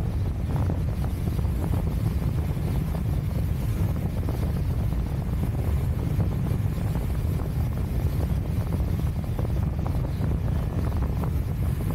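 Wind buffeting the microphone of a camera carried by a speedflying pilot in flight: a steady, unbroken low rumble.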